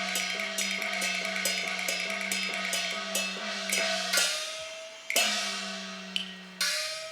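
Cantonese opera percussion opening a piece: a fast run of even strikes, about four a second, over a steady ringing gong, then three single loud gong-and-cymbal crashes that ring out and fade.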